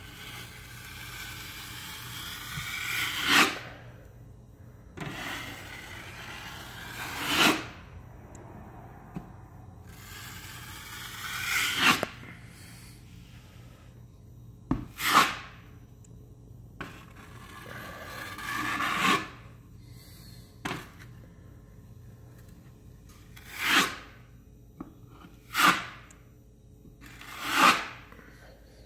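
Wide drywall knife scraping across wet joint compound on a wall, spreading and feathering a thin coat over a patched hole. About nine strokes, each swelling to a sharp scrape as the blade finishes its pass; the first few are long and slow, the later ones shorter and quicker.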